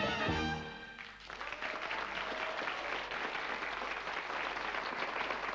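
A jazz band with trumpet, clarinet, saxophones and trombone holds its final chord, which dies away within the first second. After a brief dip, a studio audience applauds steadily.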